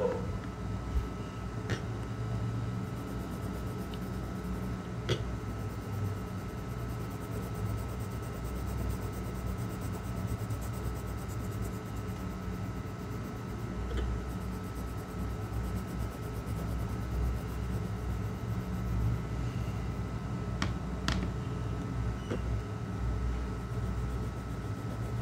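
Steady low room hum with a faint, constant high-pitched whine, broken by a handful of faint clicks.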